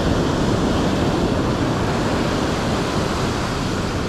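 Ocean surf breaking and washing up a sandy beach: a steady, unbroken rush.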